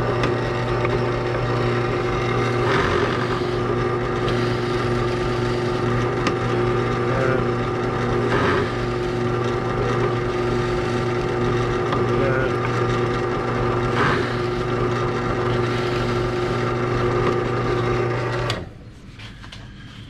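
Benchtop drill press running steadily with a countersink bit, cutting screw countersinks into a speaker adapter, with a few brief louder moments as the bit bites. The motor switches off suddenly near the end.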